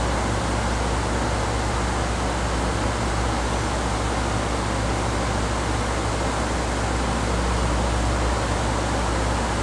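Heavy rain falling, a loud steady hiss with no let-up, with a low steady hum underneath.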